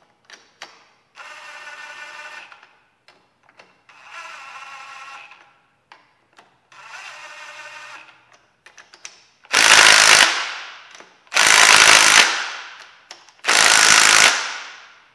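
Cordless power driver tightening a bolt: three short runs of motor whine as it spins the fastener down, then three much louder, harsher bursts that fade away as the bolt is driven tight.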